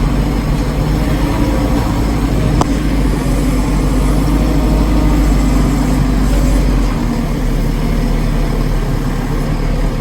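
Backhoe's diesel engine running steadily under way, with a deep hum from the cab. The deepest rumble eases about seven seconds in.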